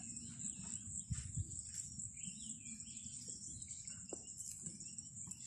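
Bush ambience: a steady high-pitched insect buzz with scattered short bird chirps, over a faint low rumble that swells briefly about a second in.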